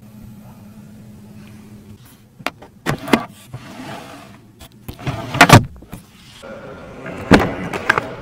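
Clicks and knocks from a car's rear-console storage drawer being handled as it slides open and shut, the loudest knock about halfway through, with more clunks near the end.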